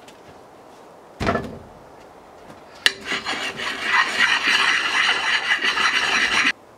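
A short knock, then a click, then a rusty steel axe head being scrubbed hard by hand with an abrasive pad. The steady rubbing starts about three seconds in and stops abruptly just before the end.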